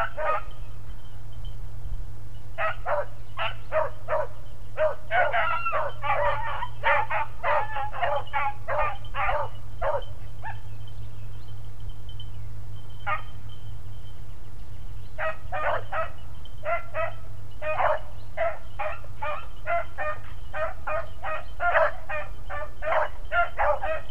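Beagles giving tongue while running a track in brush: quick runs of high yipping barks, with a break of a few seconds near the middle before the barking picks up again. A steady low hum lies underneath.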